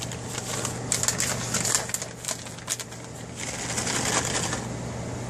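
Plastic crinkling and rustling in irregular crackly bursts, about a second in and again near four seconds, over a steady low hum.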